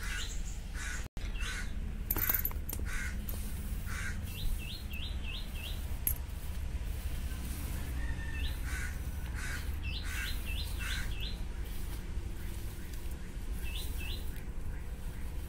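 Birds calling outdoors: a small bird repeats quick rising notes in runs of four or five, with other fainter calls between them, over a steady low rumble.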